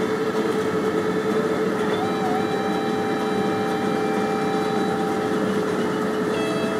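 Vehicle driving through a road tunnel: a steady roar of road and engine noise, with long held tones on top that shift pitch now and then.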